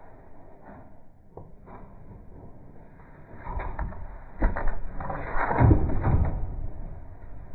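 Scuffling and rattling knocks as a rabbit moves about on a wire cage floor while a hand holds and pets it. It is quiet at first, starts about three seconds in, and is loudest just past the middle.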